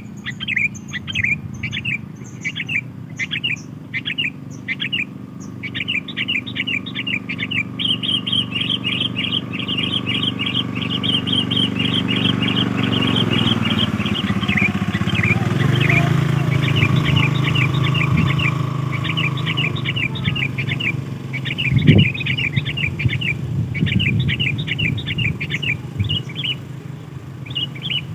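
Sooty-headed bulbul (kutilang) calling as a lure: short phrases of bright, quick chirps repeated over and over. A low hum swells through the middle and there is a single thump near the end.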